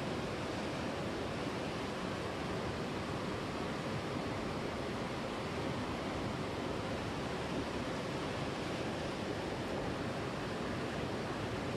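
Steady rush of river water flowing over rocks in a shallow riffle.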